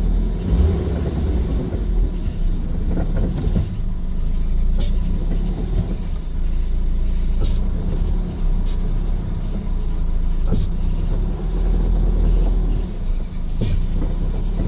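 Car engine running under throttle in drive, a steady low drone with about five short sharp clicks spread through it. The car has a newly fitted axle yet still sounds as if the axle isn't engaged.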